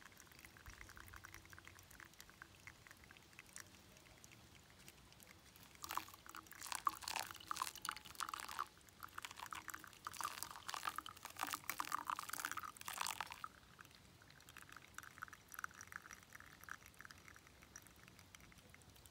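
Brewed coffee draining through a mesh pour-over filter into a titanium mug: a faint, crackly trickle and drip that grows louder for several seconds in the middle.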